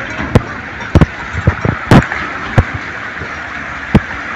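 Steady rush of a shallow stream running over rocks, with about five short sharp knocks scattered through it.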